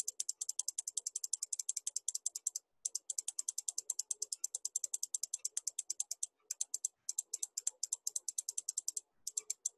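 Rapid computer mouse clicks, about six or seven a second, paging a calendar back month by month, in runs broken by a few short pauses.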